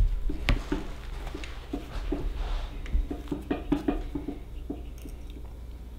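Needle and thread being drawn through a wet deer hide as it is hand-stitched onto a taxidermy form: a run of short, irregular scratches and rustles that die away about five seconds in.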